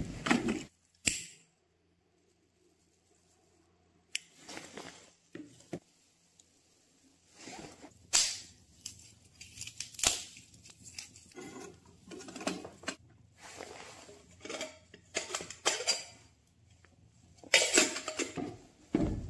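Small wood fire crackling in a folding steel camp stove, with irregular snaps and clicks as sticks burn and are pushed into it.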